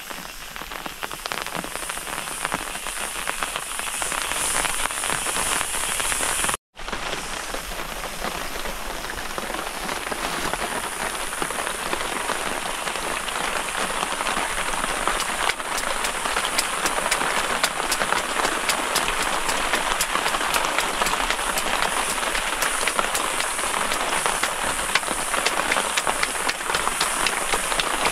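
Steady rain falling on a plastic tarpaulin shelter: a dense, even patter of drops. It cuts out for a moment about seven seconds in.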